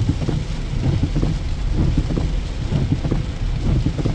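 Heavy rain pattering on the roof and windshield of a moving van, heard from inside the cabin as a steady dense patter over low road rumble.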